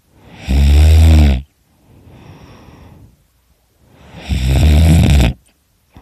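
A person snoring extremely loudly: two snores about three seconds apart, each lasting about a second, with a softer breath between them.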